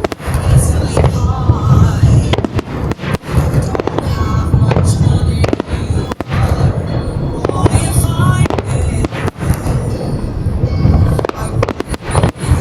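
Fireworks barrage: aerial shells bursting in rapid succession, with deep booms and sharp cracks packed closely together, over background music.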